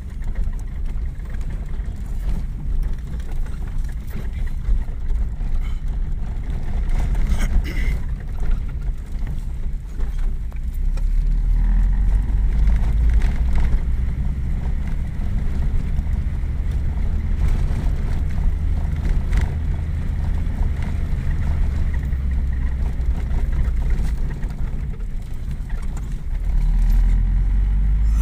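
Inside a vehicle's cab driving on a rough dirt road: a steady low engine and tyre rumble that grows louder about a third of the way through, with scattered knocks and rattles from the bumpy track.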